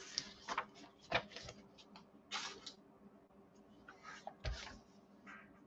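Faint handling noises from pieces of chipboard being moved, slid and set down on a plastic scoring board: light clicks and rustles, a brief scrape about two and a half seconds in, and a soft thump about four and a half seconds in.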